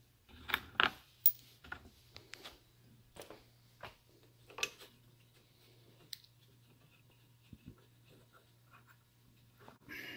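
Scattered clicks and knocks of hands handling plastic grille trim and its bolts while fitting them, the sharpest about a second in, over a faint steady low hum.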